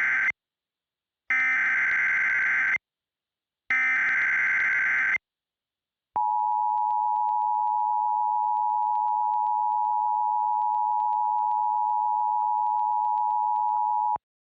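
Emergency Alert System broadcast: the end of one burst and then two more full bursts of the SAME header's harsh digital data screech, evenly spaced. After a short gap comes the steady EAS attention tone, held for about eight seconds before it cuts off abruptly. This is the signal that announces a civil emergency message.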